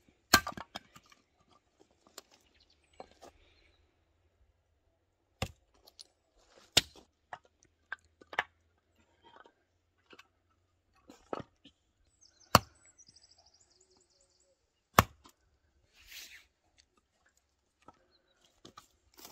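A hatchet splitting short logs into kindling: about seven sharp wooden chops at irregular intervals, with lighter knocks between them.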